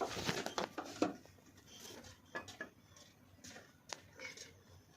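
Scattered light clicks and knocks of handling, with a brief rustle at the start.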